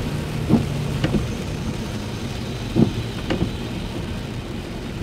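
Steady low engine and road rumble heard inside a car driving on rain-wet streets. Four short thumps break through it over the few seconds.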